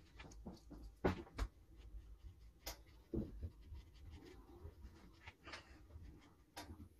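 Paintbrush strokes on watercolour paper: soft, faint scratchy brushing with scattered light taps and clicks of the brushes, and a couple of longer strokes about three and five and a half seconds in.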